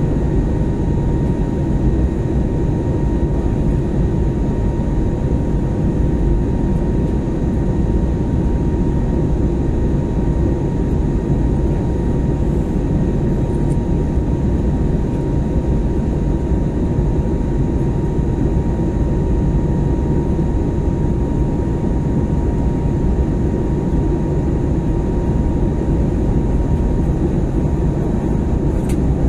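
Cabin noise of an Airbus A321neo climbing out after takeoff: the steady roar of its Pratt & Whitney PW1100G geared turbofans and the airflow, heard from inside the cabin. A thin steady whine sits above it and fades out near the end.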